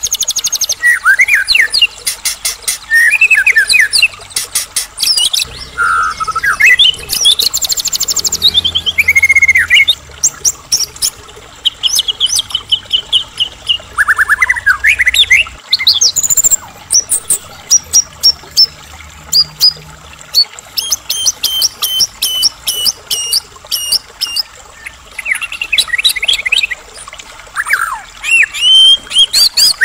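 White-rumped shama in full song: a long, varied run of loud whistled phrases, fast trills and rising and falling notes, broken by short pauses and full of borrowed phrases (isian).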